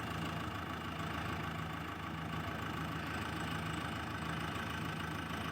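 Diesel engine of heavy machinery idling steadily, with a slow regular pulse in its low hum.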